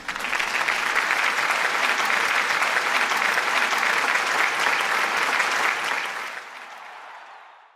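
Applause from a crowd, dense and steady, fading out over the last two seconds.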